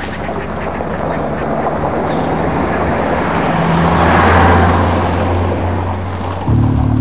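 A car driving past: engine and tyre noise swell to a peak about four seconds in, then ease off. About six and a half seconds in, the sound changes abruptly to a steadier engine hum.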